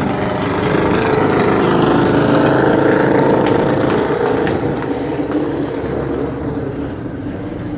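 Racing riding-mower engines running hard at full throttle during a drag race run, growing louder to a peak about two to three seconds in and then fading as they pull away.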